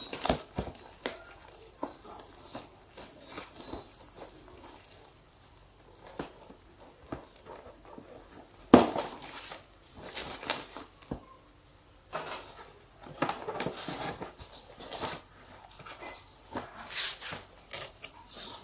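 Cardboard box being torn open by hand: irregular ripping, scraping and rustling of the cardboard flaps and plastic strapping, with the sharpest rip about nine seconds in.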